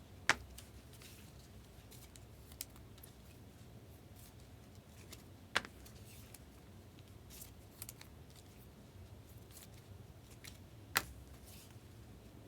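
Trading cards being handled: faint sliding and rustling, with three sharp clicks, one about a second in, one in the middle and one near the end.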